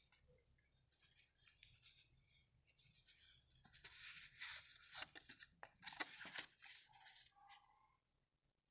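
Faint, irregular rustling and scraping, busier and louder in the middle of the stretch, with a few sharp clicks, like things being handled on a table.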